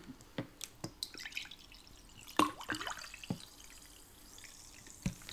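Faint liquid drips and small clinks as a drink of pop is handled in a glass mug: a scattering of separate ticks and little splashes.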